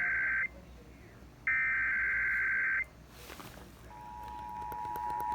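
Emergency Alert System SAME header data bursts, rasping digital tones, broadcast over AM radio. One burst ends half a second in and another lasts about a second and a half. A few seconds in, the steady two-tone EAS attention signal starts.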